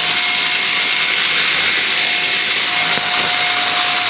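Arrma Limitless RC car's brushless motor and drivetrain running flat out with a steady high-pitched whine, holding a constant pitch.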